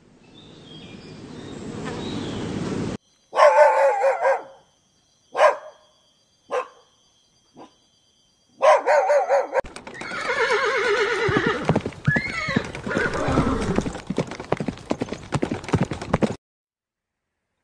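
A run of animal sounds: first a swelling rush of noise, then a few short barks or yips from a puppy. Horses whinny over a dense clatter of clicks and knocks, with one long whinny rising and falling about twelve seconds in. All sound stops shortly before the end.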